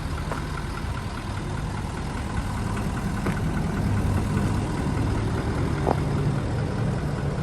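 Ford F250 pickup's diesel engine idling steadily, with a few light clicks over the hum.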